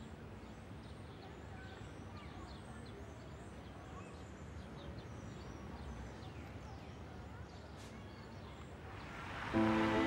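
Steady outdoor background noise with faint, scattered bird chirps. Near the end a rising whoosh swells and bowed string music comes in.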